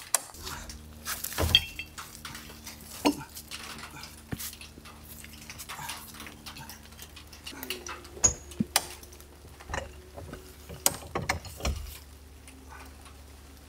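Irregular metallic clicks and clanks of a high-lift jack being worked and metal pier-block brackets being fitted under the edge of a wooden shed, over a faint steady low hum.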